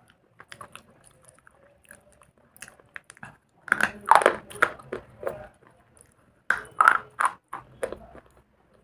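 A bar of slate being bitten and chewed. Small crunching clicks at first, then two loud crunchy bites, one about four seconds in and one about six and a half seconds in, each followed by a run of smaller crunches as it is chewed.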